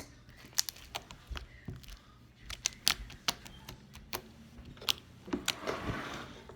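Hands squeezing and stretching homemade slime: irregular sticky clicks and pops, with a short rustle about five and a half seconds in.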